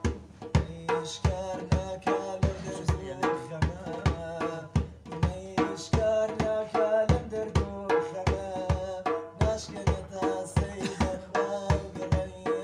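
Metal goblet drum (darbuka) played by hand in a steady rhythm of about three strokes a second, with pitched melody tones sounding along with it.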